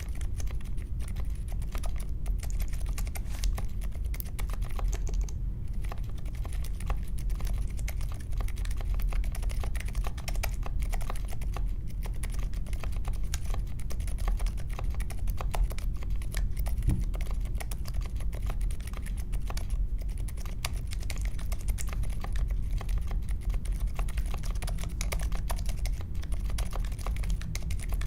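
Continuous typing on a mechanical keyboard with unlubed Akko CS Vintage White linear switches, in an aluminium case with foam and tape mods and clipped stabilisers. The keystrokes run as a dense, steady stream of clacks.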